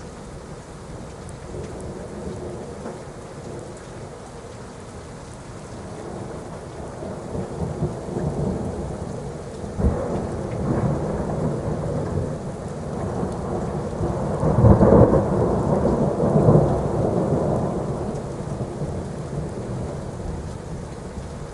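Thunderstorm: steady rain with a long roll of thunder that builds, cracks sharply about halfway through, peaks in loud rumbling about two-thirds in, then dies away.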